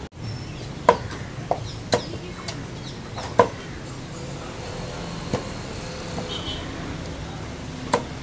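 Meat cleaver chopping raw chicken on a wooden chopping block: a handful of sharp, irregularly spaced chops, about seven in all, over steady shop background noise.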